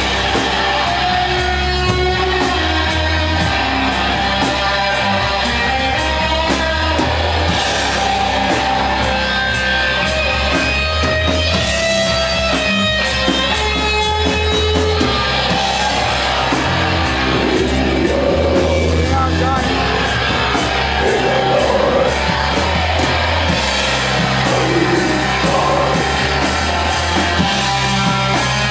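Doom metal band playing live: a heavily distorted, fuzzed electric guitar (Gibson Les Paul through a Matamp GT1 amp) holding slow, sustained notes over a heavy low end, with drums and cymbals keeping a steady beat.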